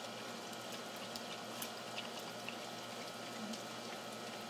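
Steady rain falling on a wet wooden deck, with scattered sharp drip ticks at irregular moments.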